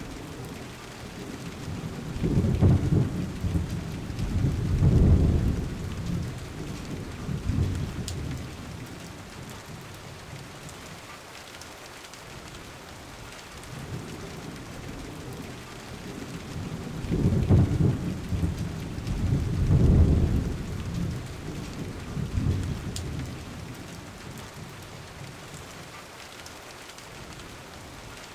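Steady rain hiss with two long, low rolls of thunder, one a couple of seconds in and another about fifteen seconds later, each swelling twice before fading.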